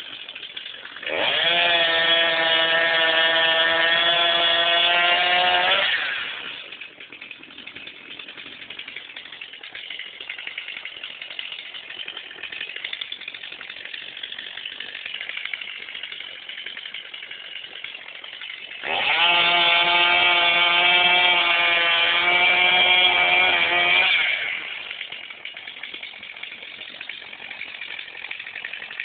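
Chainsaw engine revved up to high speed twice, each time for about five seconds, dropping back to a quieter idle in between.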